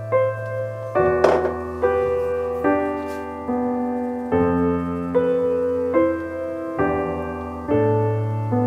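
Background music: a slow, gentle piano-like keyboard tune, with notes struck about twice a second. A brief faint click or clatter comes about a second in.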